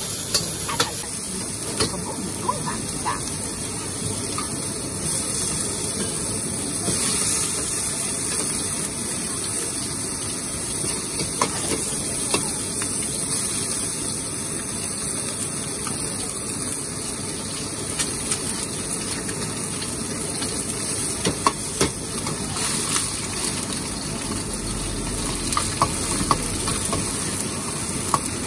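Stir-frying in a wok over a gas flame: a steady sizzle of food in hot oil, with the metal ladle knocking and scraping against the wok again and again.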